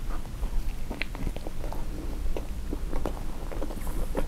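Close-miked chewing of a turkey sausage, egg and cheese bagel sandwich, with many short, irregular mouth clicks.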